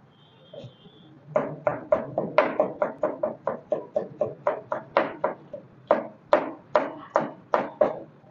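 Knife chopping vegetables on a plastic cutting board: a rapid, even run of sharp knocks at about four a second, starting a little over a second in.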